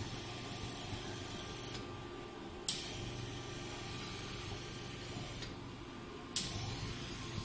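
Vacuum body-roller machine running with a steady hum, while its suction handle hisses in repeating cycles: each hiss starts suddenly with a click and stops about three seconds later, then starts again after a short pause, twice within the stretch. This is the handle's timed vacuum suction-and-release cycle.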